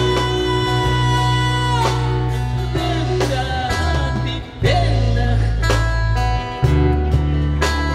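A male vocalist singing a Malay rock ballad into a microphone, backed by amplified electric guitar and heavy low accompaniment.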